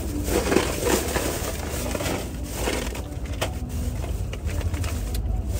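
Plastic snack wrapper crinkling and crackling in the hand as a meat pie is unwrapped and eaten from it: a string of irregular crackles over a low steady hum.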